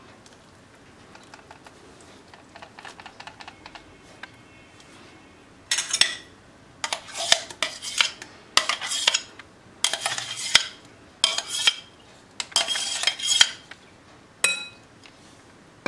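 A metal spoon scraping thick mango purée out of a stainless steel mixer-grinder jar into a glass bowl. A few faint clicks come first, then from about six seconds in there are about eight short metallic scrapes.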